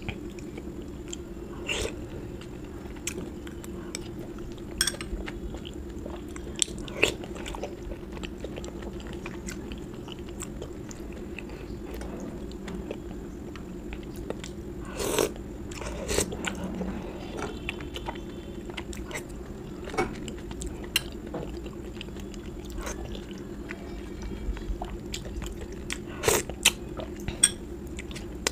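Close-miked eating: chewing and biting food, with scattered sharp clicks and crunches at irregular intervals, a few louder ones about halfway and near the end, over a steady low background hum.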